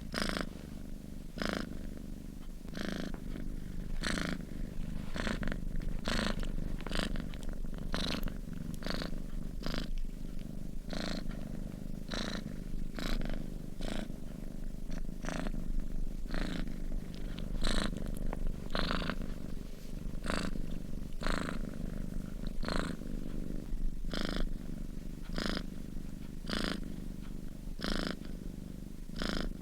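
Sleeping domestic cat purring steadily, a low rumble that pulses in an even rhythm about every two-thirds of a second as it breathes in and out.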